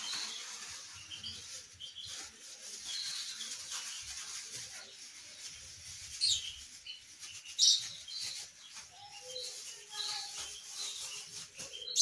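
A plastic bag of ground seed and feed powder being shaken and kneaded, rustling and crinkling, with two louder crinkles a little past the middle. Small birds chirp faintly throughout.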